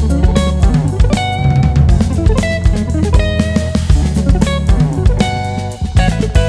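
Instrumental Brazilian jazz trio playing: electric guitar lead over electric bass and drum kit, with busy drum strokes throughout.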